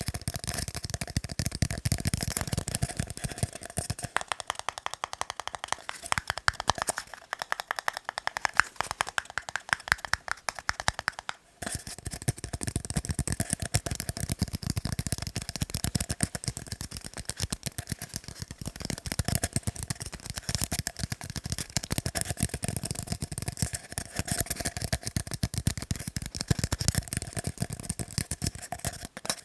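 Fast tapping on tiny cups: a dense, rapid clicking that keeps on with only a brief break about a third of the way through.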